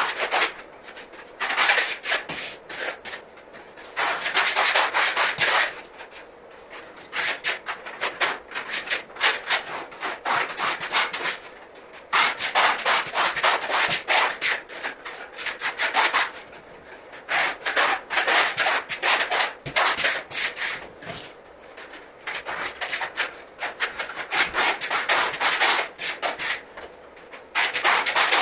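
Hand-held sanding block rubbing over dried decorative plaster on a wall: quick back-and-forth strokes in spells of a second or two, with short pauses between them.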